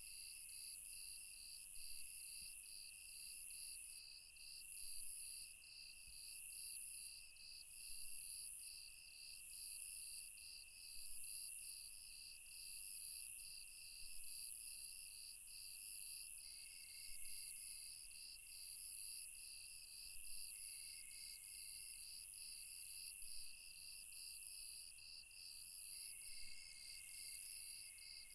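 Night insect chorus: crickets chirping in an even pulsing rhythm, about two pulses a second, over a high shrill trill that swells and fades every second or two.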